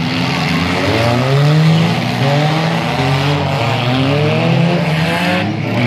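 Engines of several small demolition derby cars revving hard over and over, their pitches rising and falling against each other.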